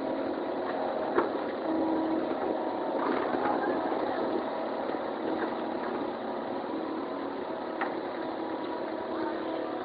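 Engine of heavy construction machinery, likely an excavator, running steadily, with two sharp metallic knocks, one about a second in and one near the end.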